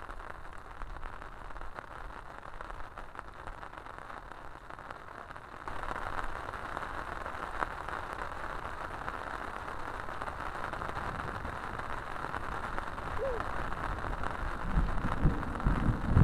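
Steady hiss of rain falling, growing louder about six seconds in. Low thumps join near the end.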